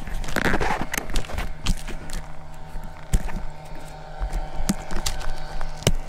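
Irregular knocks, clicks and rustling as a body-worn camera is jostled while the wearer moves over sandy grass, with a faint steady hum underneath.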